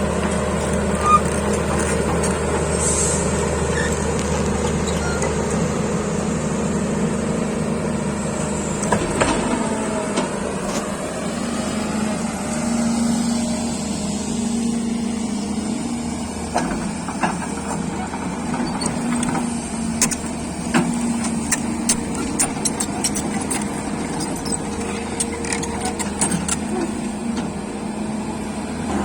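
Heavy diesel machinery engine running steadily, with a series of sharp metallic clicks and knocks in the second half.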